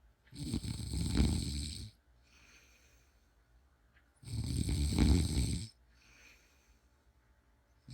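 A woman snoring: two loud, rough snores about four seconds apart, each lasting about a second and a half, with a faint breath between them and the next snore starting at the very end.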